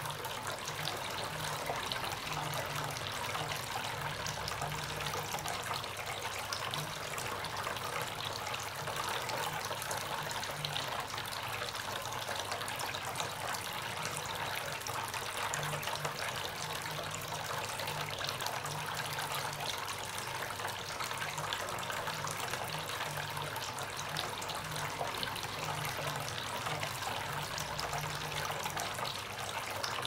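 Water from a small tabletop fountain's spout trickling and splashing steadily into a pebble-filled basin, with a low hum underneath.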